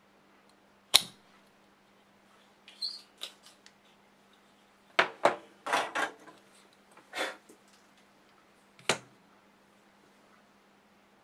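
A sharp snap about a second in, like a spring-loaded desoldering pump firing, then a string of clicks and knocks as the pump and other hand tools are handled and set down on the workbench.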